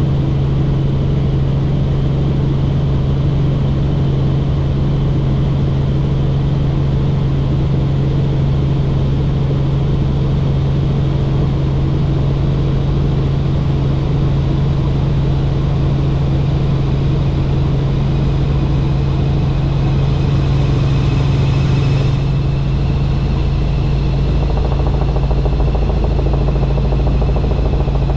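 Helicopter in flight: a steady engine and rotor drone with a constant low hum and rumble. A higher whine joins in over the last third.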